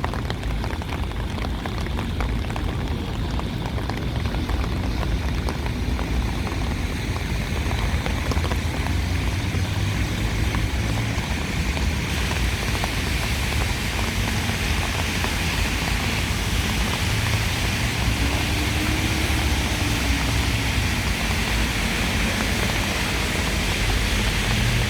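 Rainy city street ambience: a steady low rumble of traffic under a continuous hiss of rain and wet tyres. The hiss grows brighter about halfway through.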